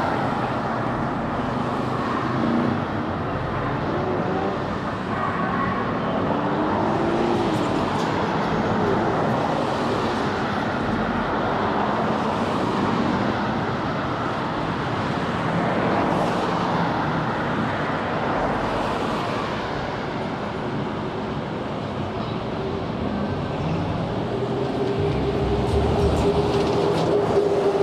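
Slow car traffic: several cars' engines running and tyres rolling on pavement, a steady mixed noise with faint rises and falls in engine pitch. Near the end, a low rumble and a steady hum grow louder as a car passes close.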